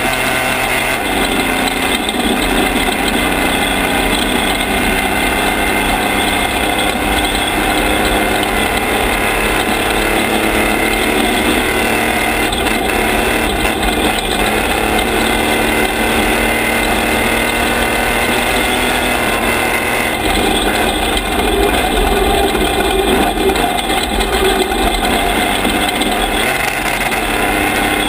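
Toyota-based off-road race truck running hard at speed on a dirt road, its engine droning steadily under wind and tyre noise on the gravel, a little louder for a few seconds past the middle.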